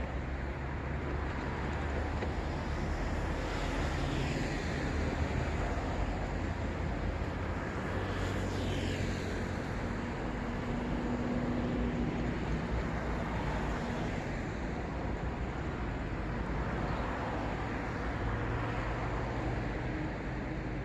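City road traffic: a steady wash of passing cars with engine hum and tyre noise, single vehicles sweeping past about 3 seconds in and again around 8 seconds.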